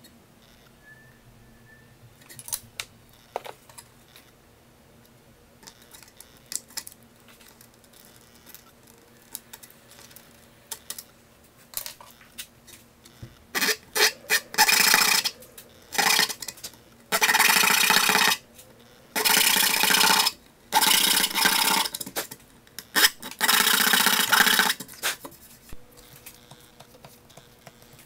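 A small hand saw cutting notches into the folded spine edge of a stack of paper signatures clamped in a vise: six loud stretches of rasping strokes in the second half. Before them, scattered light clicks and taps from handling.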